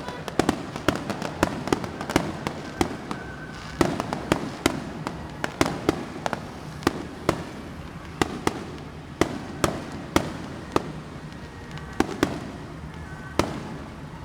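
Fireworks going off in a string of sharp, irregular bangs, about two a second and sometimes in quick clusters, each with a short echo, over a steady low hum.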